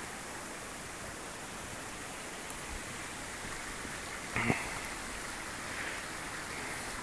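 Steady outdoor rushing hiss, with a brief knock about four and a half seconds in.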